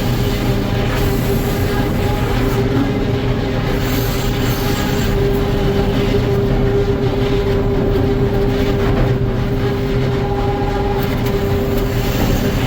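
Sawmill running steadily in a white pine log, a constant machine rumble with a steady hum.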